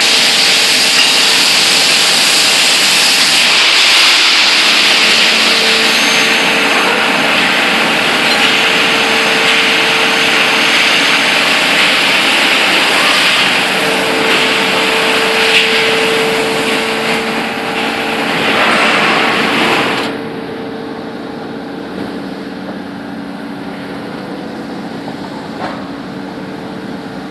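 Machinery on a truck-frame riveting line running steadily: a loud, even hiss over a steady hum. About twenty seconds in, the hiss falls away sharply and the level drops, leaving the quieter hum.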